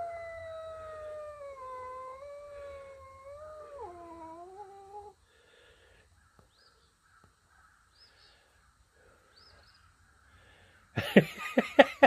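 Domestic cat growling at a dog: one long, drawn-out growling yowl that slides slowly lower and drops sharply about four seconds in, then stops. Near the end comes a sudden burst of loud, sharp animal cries.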